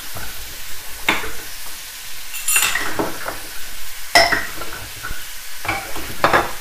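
Pork ribs in a sauce sizzling as they fry in a wok, with a wooden spatula knocking and scraping against the pan about six times.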